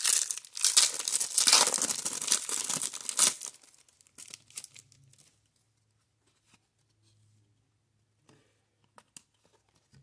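Foil wrapper of a 1994 Topps Stadium Club baseball card pack being torn open and crinkled for about three and a half seconds. After that there are only a few faint ticks.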